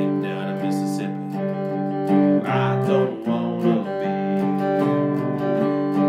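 Cigar box guitar played slide-style, with ringing sustained notes and strummed strokes. Around the middle, several notes glide and shift in pitch.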